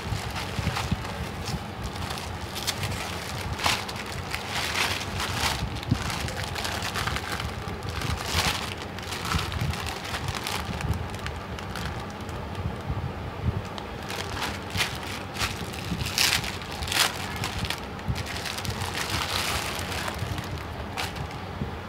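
Plastic packaging and bubble wrap crinkling and crackling as it is handled and pulled open by hand, in irregular bursts of rustling throughout.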